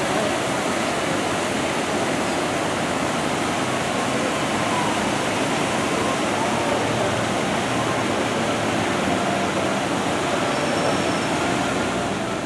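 Steady rush and splashing of water from a lagoon's underwater bubbler jets and rockwork waterfall.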